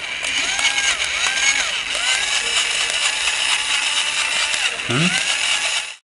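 A remote-control Spinosaurus toy running its mist effect: a steady electric buzz, with repeated rising-and-falling electronic calls from the toy's speaker over it. The sound cuts off suddenly near the end.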